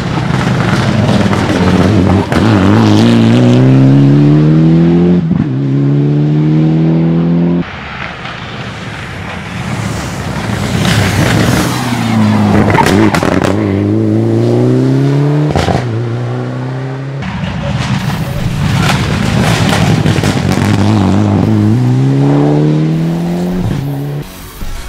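Mitsubishi Lancer Evolution rally cars' turbocharged four-cylinder engines accelerating hard. The engine note climbs in pitch through each gear and drops back at every upshift, in three separate flat-out runs, each breaking off abruptly.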